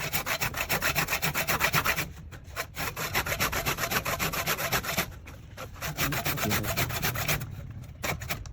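Wood being cut on a lathe with a hand-held turning tool: a fast, even, rhythmic scraping that eases off briefly about two seconds in, again about five seconds in, and near the end.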